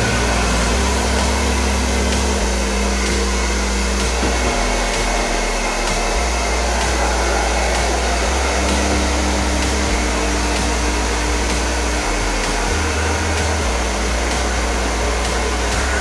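Singer hand-held hair dryer running steadily, an even rush of blown air, under load on a power strip. Background music with a bass line plays underneath.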